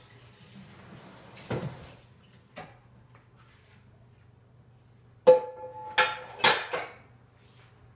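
Kitchen tap running into the sink, stopping about two seconds in, then dishes being handled: a couple of light knocks, and a little past halfway a burst of loud clanks, the first ringing on briefly. A low steady hum underneath.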